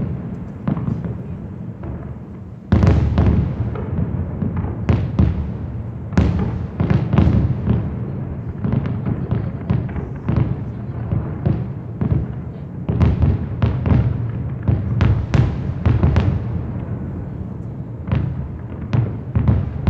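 Aerial fireworks: a dense, irregular barrage of shell bursts and bangs over a continuous low rumble, growing suddenly louder about three seconds in.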